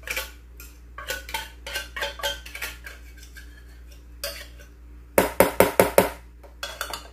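A metal fork scraping and clinking inside an open tuna can as the tuna is dug out into a glass mixing bowl of macaroni. A little past five seconds in comes a quick run of about six sharp, louder metal taps, knocking the tuna loose.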